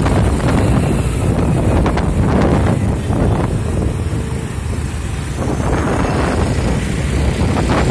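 Wind buffeting the microphone of a moving road vehicle, with vehicle and traffic noise underneath; it eases a little around the middle.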